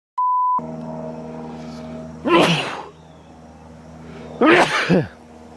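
A short electronic beep, then a person sneezes twice, about two seconds apart, over a steady low hum.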